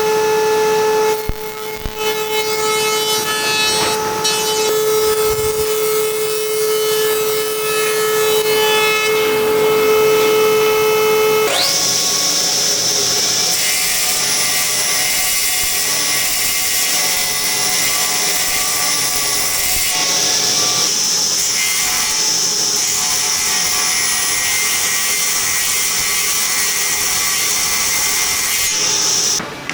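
An electric power tool working wood. It runs with a steady pitched hum for the first eleven or so seconds, then switches suddenly to a high-pitched whine that holds until just before the end.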